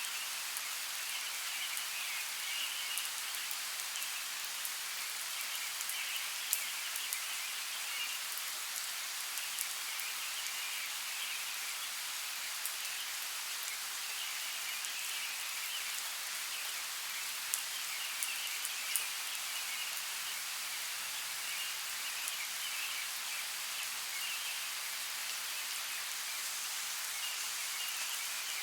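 Steady light rain falling in a forest, individual drops ticking here and there over an even hiss, with faint chirping coming and going in the background.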